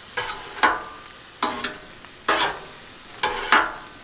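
A metal griddle tool chopping and scraping sliced steak on the steel top of a Blackstone griddle: about six ringing metal strikes, half a second to a second apart, over the steady sizzle of the meat frying.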